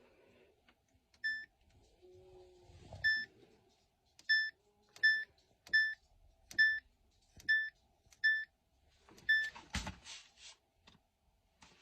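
Samsung Eco Bubble washer-dryer control panel beeping as programs are stepped through, about nine short single-pitched beeps less than a second apart, followed by a knock near the end.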